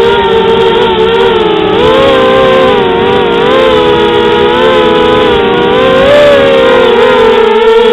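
FPV quadcopter's electric motors and propellers whining: several close pitches that rise and fall together as the throttle changes.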